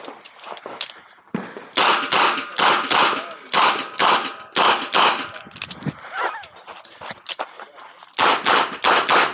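Smith & Wesson 929 9mm revolver fired in rapid strings: about eight shots roughly half a second apart from about two seconds in, a gap of about three seconds, then another fast string starting near the end.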